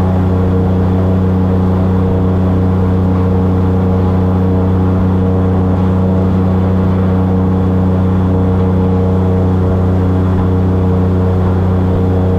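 Airboat's engine and air propeller running at a steady cruising speed: a loud, even drone that holds one pitch throughout.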